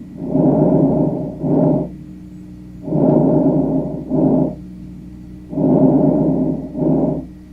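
Breath sounds heard through a stethoscope: three breathing cycles about every 2.7 s, each a longer rushing sound followed by a shorter one, over a faint steady hum.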